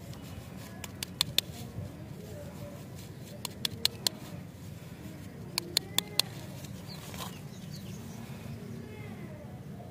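Plastic lollipop wrapper crackling as it is handled, in short clusters of sharp clicks over a low steady hum.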